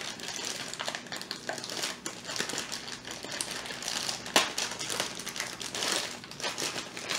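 Plastic bag of bait anchovies crinkling and crackling as it is pulled open by hand, with one sharper crack about four seconds in.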